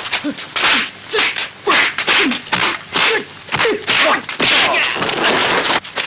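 Dubbed kung fu fight sound effects: a rapid run of swishing whooshes and slapping punch-and-block hits, about two a second, mixed with short sharp shouts and grunts from the fighters.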